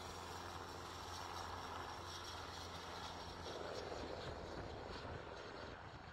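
Helicopter engine and rotor noise, a steady hum with a broad whooshing wash, easing slightly near the end.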